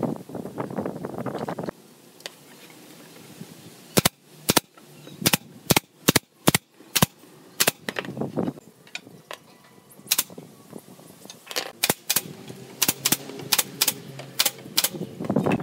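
Pneumatic nail gun firing into wood slats: sharp single cracks in irregular runs of two or three a second, about seventeen shots in all, starting a few seconds in.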